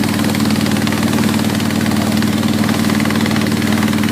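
Boat engine running steadily, a constant hum that does not change.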